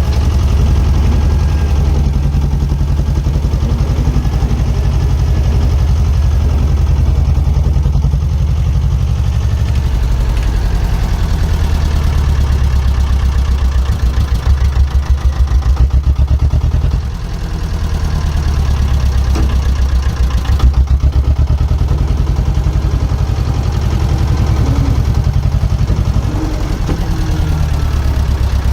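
Diesel engine of small earthmoving plant running with an even low-pitched pulse. It dips briefly a little past halfway, then picks up again.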